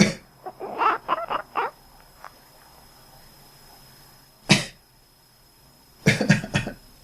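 A person coughs once, and a domestic cat answers right away with a quick run of about six short, quack-like calls. A single cough follows a few seconds later, then a quick fit of coughs near the end.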